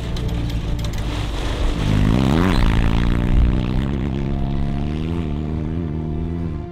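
Off-road race buggy's engine passing at speed. Its pitch climbs to a peak about two and a half seconds in, then drops, and the sound falls away as the car drives off.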